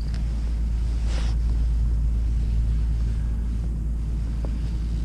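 Wind buffeting the microphone, a steady low rumble, with a brief faint rustle about a second in.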